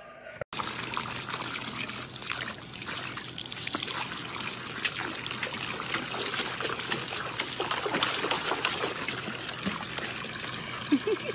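A stream of water pouring and splashing into a metal bowl, with a husky puppy pawing at the water in it. It starts suddenly about half a second in and runs steadily until it cuts off at the end.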